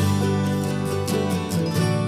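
Background music: a country-style tune with acoustic guitar and a steady beat.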